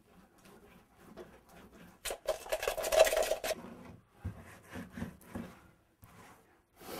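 A tool scraping and rubbing across a gritty, textured painted surface, with one hard scrape lasting about a second and a half about two seconds in and lighter scratches and taps around it.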